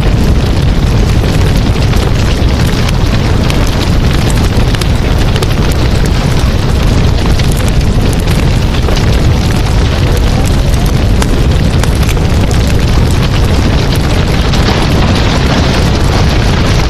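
Loud, steady sizzling and crackling of meat cooking on a grill, with a deep rumble underneath.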